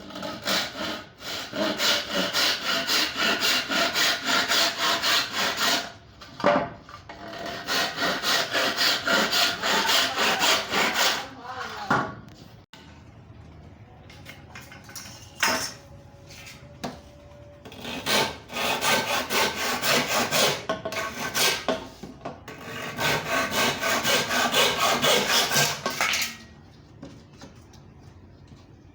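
Wood being hand-sawn in rapid, regular back-and-forth strokes, in four runs of a few seconds each with short pauses between them.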